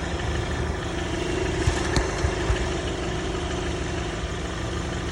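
An engine idling steadily, a low hum with one sharp click about two seconds in.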